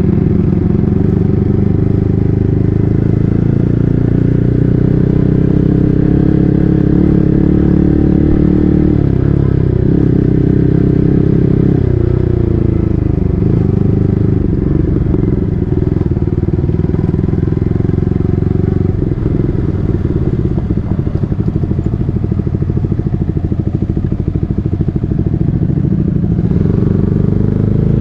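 Yamaha MT-15's single-cylinder engine running through an SC Project full-system exhaust while riding. The engine note dips briefly twice, sits lower and rougher through the second half, then rises near the end as the throttle opens.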